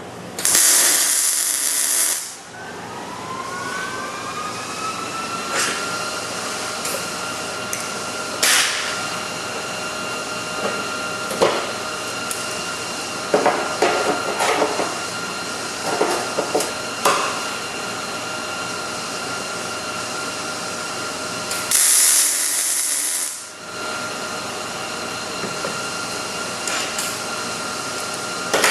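Miller 211 MIG welder laying two short welds, each a loud hissing, crackling burst under two seconds, one at the start and one about 22 seconds in. Between them a steady whine rises in pitch and settles after the first weld, with scattered clicks and knocks.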